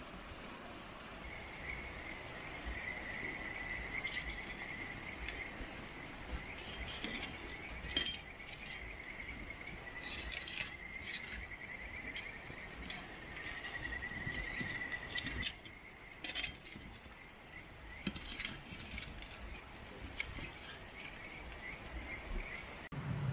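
An insect trilling steadily at a high pitch, breaking off about two-thirds of the way through and coming back faintly, with scattered light clicks and clinks over it.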